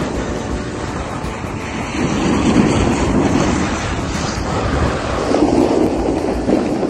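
Wind rushing over the microphone during a downhill ski run, mixed with skis scraping and hissing over packed snow. The noise swells twice, about two seconds and five seconds in.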